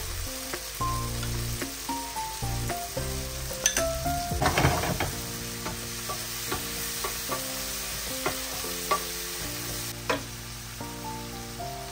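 Food sizzling in a frying pan as it is stirred, with scattered utensil ticks and a louder burst of sizzling about four seconds in, over soft background music.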